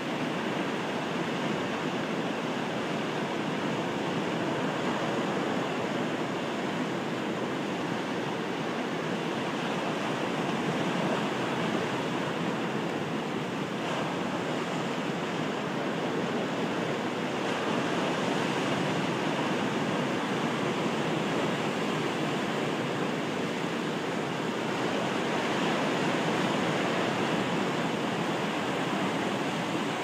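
Atlantic surf breaking and washing over a rocky shore: a steady rush of water that rises and falls gently in loudness as the sets come in.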